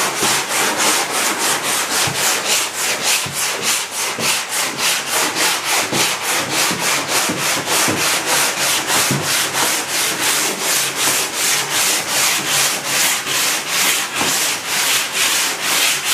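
Hand block sanding on the primed, filler-coated fibreglass body of a Lotus 51C race car: sandpaper on a block scraping back and forth in a steady rhythm of a few strokes a second, levelling the filler to straighten the body before paint.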